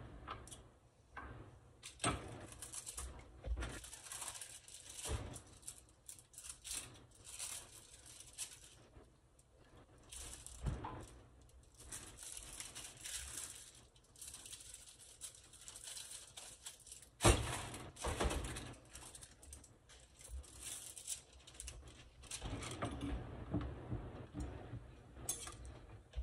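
Plastic packaging of pastelito dough discs rustling and crinkling on and off, with small clicks and knocks of kitchen utensils; one sharp knock about 17 seconds in is the loudest. Near the end, a metal spoon scraping the filling in a stainless pan.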